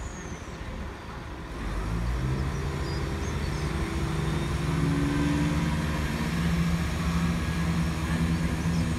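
Class 168 Turbostar diesel multiple unit's underfloor diesel engines opening up about one and a half seconds in, then a steady low engine note building as the train moves off.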